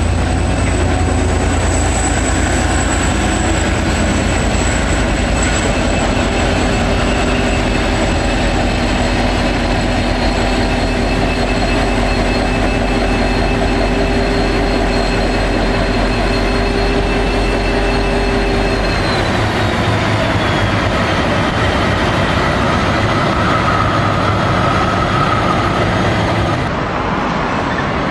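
V/Line N-class diesel-electric locomotive hauling passenger carriages past. The deep engine rumble dominates for about the first two-thirds, then gives way to the carriages rolling over the pointwork, with a thin wheel squeal near the end before the sound drops away.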